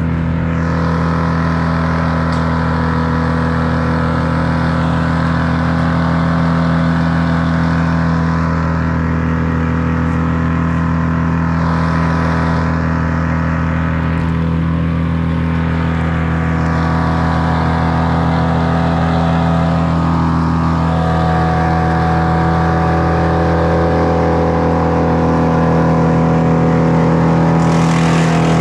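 An engine running at a steady speed throughout, with no clear revving up or down.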